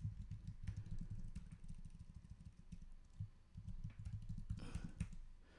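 Typing on a computer keyboard: a fast, irregular run of faint key clicks.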